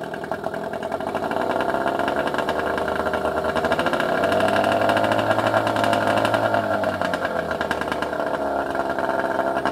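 15 hp two-stroke outboard motor revved up from idle, its pitch climbing over a few seconds, held briefly, then falling back to idle near the end.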